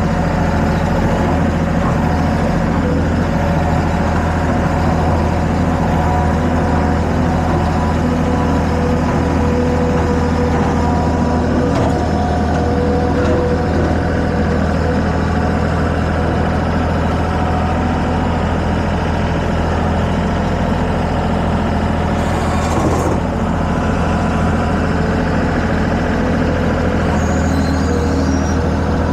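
Engine of a heavy machine running steadily at constant speed, as when hauling a load of sawn boards.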